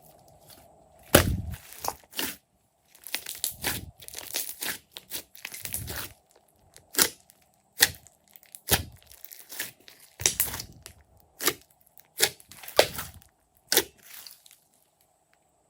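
Glossy slime being squished and pressed by hand, giving a run of sharp pops and clicks at uneven intervals. The sounds fall silent near the end.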